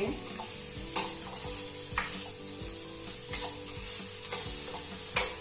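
Steel spoon stirring and scraping an onion-tomato masala frying in oil in a steel kadhai, with a steady sizzle and a knock of spoon on pan about once a second. The masala is cooked to the point where the oil separates from it.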